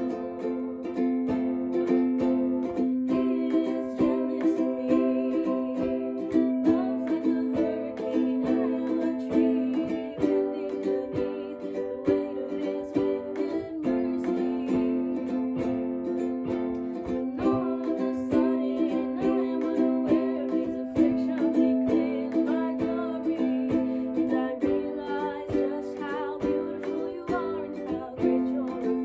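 A ukulele strummed in steady chords, with a girl singing along.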